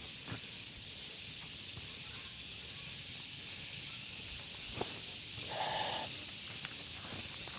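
Steady high-pitched outdoor hiss of a rural field, with a few light clicks and a brief pitched call about three quarters of the way in; no brush cutter engine running.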